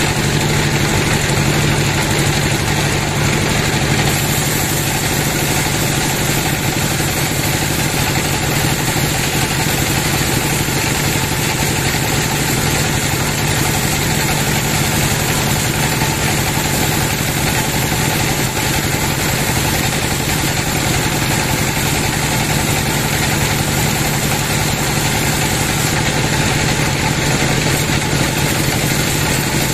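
Large band sawmill running steadily, its vertical blade ripping lengthwise through a big teak log. A constant machine drone with a steady low hum and a hiss of cutting, with no pauses.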